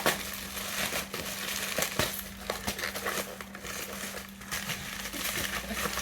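Shipping packaging crinkling and rustling as it is handled and opened, broken by sharp crackles and clicks.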